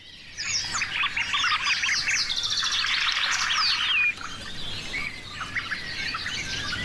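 Birdsong chorus: several birds chirping and trilling at once, with a clear falling whistle about three and a half seconds in.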